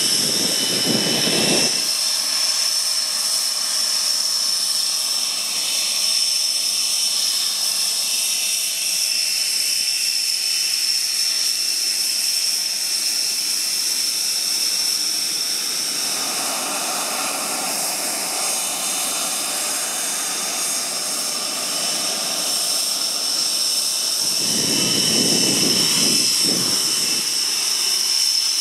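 Panavia Tornado's RB199 jet engines running on the ground: a steady high-pitched whine over a rushing hiss. A lower rumble swells near the start and again near the end.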